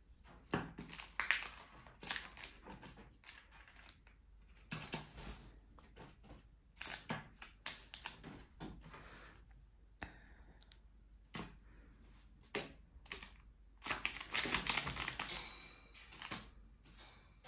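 Eurasian jay pecking and tugging at a wrapped chocolate bar: irregular sharp beak taps on the packaging, with a longer stretch of crinkling about fourteen seconds in.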